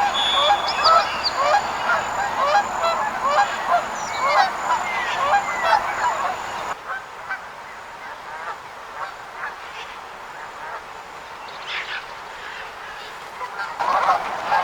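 A flock of wild geese honking, with many short nasal calls overlapping. About seven seconds in, the calling suddenly drops to scattered, quieter honks, then swells back to dense calling near the end.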